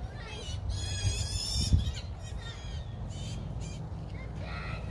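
Harsh bird squawks, repeated several times, over a low steady rumble, with a single thump about two seconds in.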